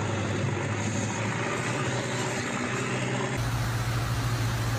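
Steady outdoor street noise: a rushing haze with a low hum. It cuts to a similar but fuller, deeper noise about three and a half seconds in.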